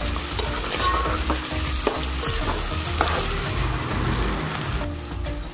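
Raw prawns, sliced onions and green chillies sizzling in hot oil in a metal pan, stirred with a spatula that scrapes and clicks against the pan a few times.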